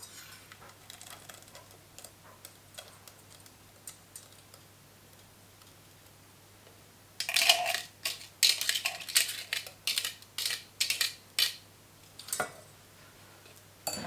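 Crushed red berries sliding from a jar into a stainless steel saucepan. From about seven seconds in comes a run of sharp scrapes and taps as a spatula scrapes the rest of the purée out of the jar against the pan.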